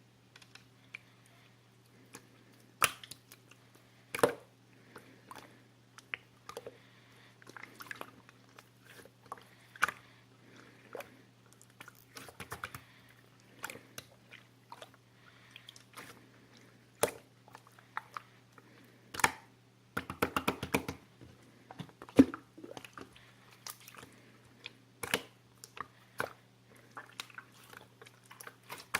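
Close-miked chewing and biting: irregular crisp crunches and clicks, with a quick rattling run of them about twenty seconds in, over a steady low hum.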